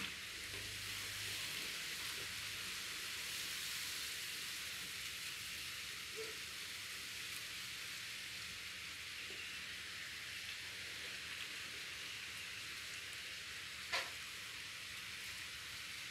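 Steady faint hiss of outdoor background noise, with a single sharp click about fourteen seconds in.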